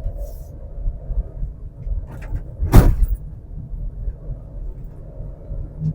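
Skoda Kushaq 1.0 TSI three-cylinder turbo petrol car accelerating hard, heard from inside the cabin as a steady low engine and road rumble. A single loud thump cuts through about halfway.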